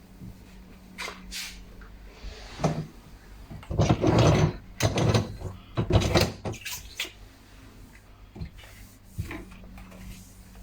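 Irregular knocks and clatter of the dishwasher's interior being handled and wiped, loudest from about four to seven seconds in.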